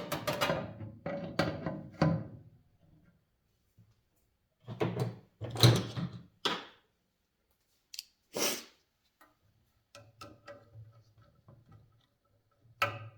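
Irregular thunks, knocks and clatter from a vintage box fan and its motor being handled, several clusters of strikes with quiet gaps between them.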